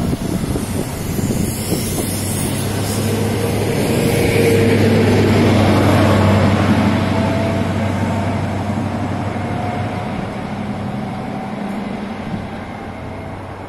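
A GWR High Speed Train (InterCity 125) running past. The diesel engine hum and wheel rumble grow loudest as the rear Class 43 power car goes by about halfway through, then fade as the train pulls away.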